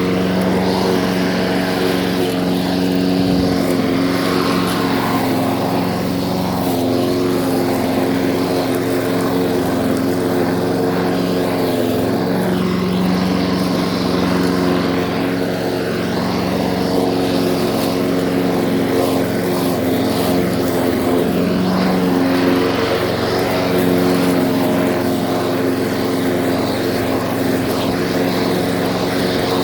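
Lawn mower engine running steadily at an even speed, holding the same pitch throughout.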